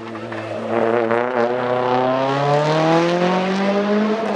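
Nissan Pulsar GTI-R's turbocharged four-cylinder engine under hard acceleration, its pitch rising steadily as the revs climb through a gear, getting louder about a second in.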